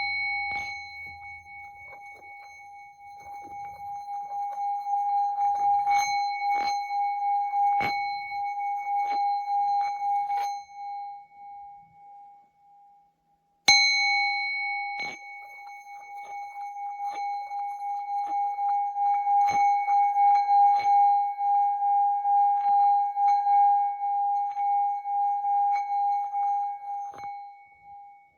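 Small hammered Tibetan singing bowl ringing with one clear tone and higher overtones after a mallet strike, then rubbed around the rim with its wooden mallet so the tone swells again with a steady wavering pulse and slowly fades. It is struck again about 14 seconds in and rimmed a second time, building to a sustained wavering ring that dies away near the end.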